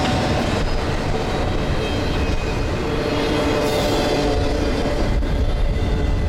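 Double-stack container freight train rolling past: a steady rumble and rattle of steel wheels on rail, with a faint steady tone over it.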